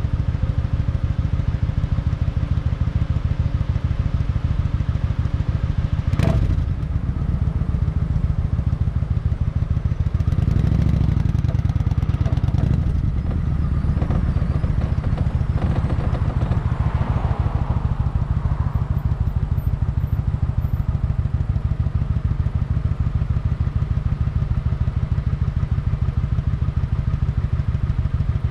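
Kawasaki Vulcan 900's V-twin engine running at a steady speed, with one sharp knock about six seconds in and a brief swell of louder noise a few seconds later.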